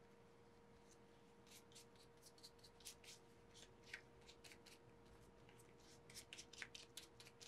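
Faint, irregular soft taps and rustles of gloved hands patting a powder puff against a prosthetic elf ear, setting the grease paint with powder. Quiet for about the first second and a half, then busier toward the end.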